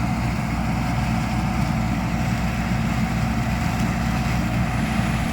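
Combine harvester running steadily while harvesting corn through a four-row corn head, its engine giving a constant low drone under the noise of the machinery.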